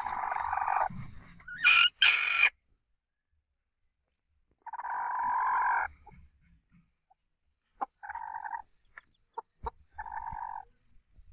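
Pet chickens calling: drawn-out squawks about a second long at the start and about five seconds in, two shorter, louder squawks near two seconds in, and two shorter calls late on, with a few sharp clicks in between.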